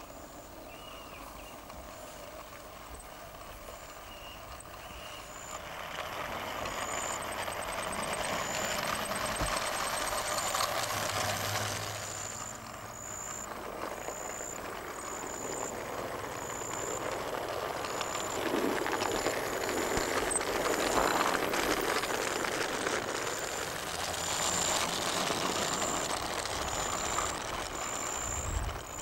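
Garden-railway model Ruston Hornsby locomotive running along its track with a train of skip wagons, its running noise growing louder as it approaches. A short high-pitched chirp repeats about once every second and a bit.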